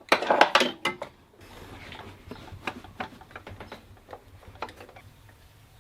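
Hand tools on the engine's idler pulley: a loud, dense run of rapid metallic clicks in the first second and a half, then scattered clicks and clinks.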